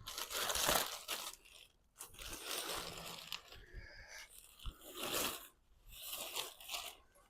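Cardboard box and packing material crinkling, tearing and scraping in a series of irregular bursts as a part is unpacked.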